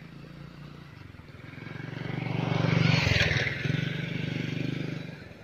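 A motor vehicle's engine passing close by: it grows louder over the first few seconds, is loudest about three seconds in, and fades away near the end.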